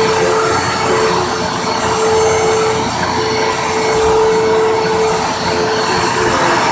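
Hoover WindTunnel bagged upright vacuum cleaner running steadily, a constant motor tone over the rush of air.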